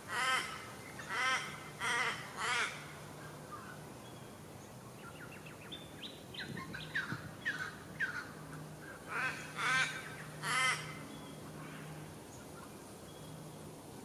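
Harsh, raspy begging calls from a nestling in a brown thornbill's nest as it is fed: a few short rasps near the start and again around ten seconds in, with a quick run of sharp, high chips in between.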